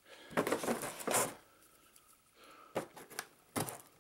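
Scissors cutting into a cardboard box and its tape: two noisy cutting strokes in the first second and a half, then two short sharp snips near the end.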